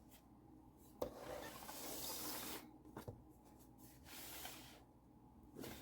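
Hands handling a freshly glued handmade journal book and rubbing over its cover: a light tap about a second in, then a rub lasting about a second and a half, another tap, a shorter rub, and a last tap near the end.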